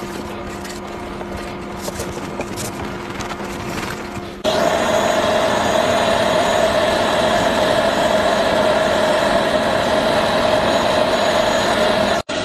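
A steady machine hum with a few light ticks. About four and a half seconds in, a much louder steady whir with a held tone switches on abruptly, then cuts off suddenly just before the end.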